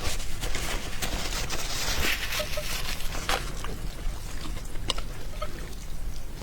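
Close-miked wet slurping and chewing of glass noodles, with a few sharp mouth clicks.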